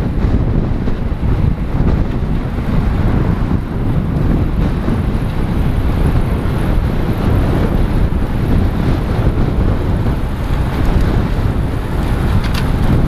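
Steady wind noise buffeting a helmet-mounted GoPro in an open skeleton housing, riding at road-bike racing speed.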